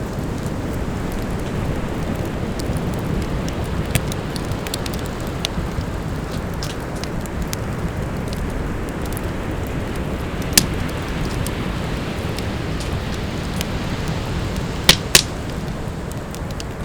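Campfire crackling, with scattered sharp pops and a close double pop near the end, over a steady low rush of ocean surf.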